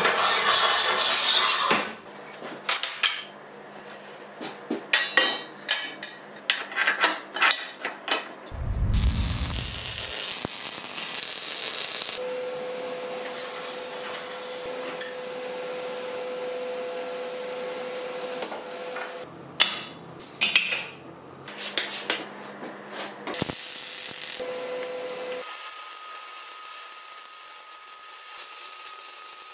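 Metalworking workshop sounds in short cuts one after another: a run of sharp taps and knocks, a dull thump, stretches of hiss, and a steady hum from a running tool.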